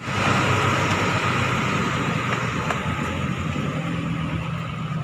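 A road vehicle on the move: a steady low engine hum under a continuous hiss of road and tyre noise.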